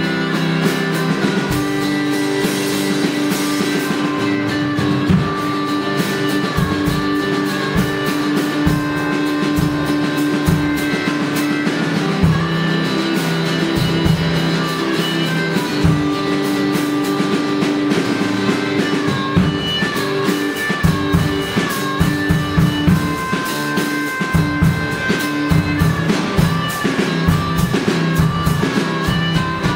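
Live instrumental blues shuffle: a harmonica played through a microphone wails held, bending notes over an electric guitar's shuffle rhythm, with drums keeping a steady beat.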